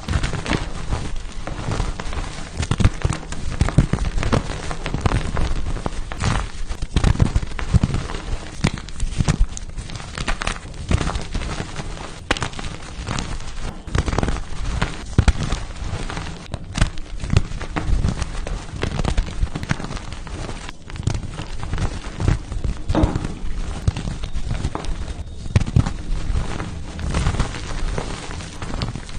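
Pasted gym chalk blocks being crushed: a continuous, dense crunching and crumbling made of many small cracks.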